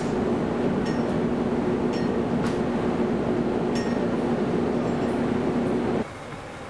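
Steady machine hum of pizza shop equipment, with a few light clinks. About six seconds in it cuts off to a quieter outdoor hush.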